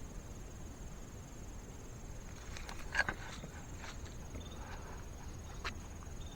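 Footsteps through brush and leaf litter, with a few sharp twig snaps, the loudest about three seconds in. Behind them, insects trill with a steady high tone.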